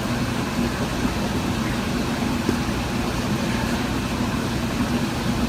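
A steady, unchanging mechanical hum with a constant low drone, like an engine or motor running.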